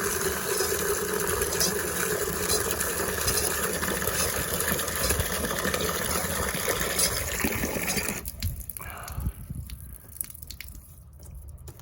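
Outdoor hose spigot running open, water gushing out at full flow after the stem and packing nut were refitted. The rush of water cuts off abruptly about eight seconds in, leaving a few faint clicks.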